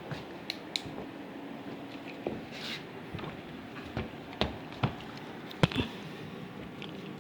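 Scattered light clicks and knocks from small objects being handled, the sharpest a little past the middle, over a steady low hum.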